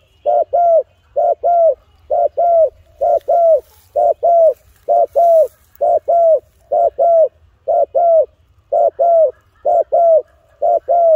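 Spotted dove cooing: short, low coos given in close pairs, each note dropping in pitch at its end, repeated without a break at about one pair a second.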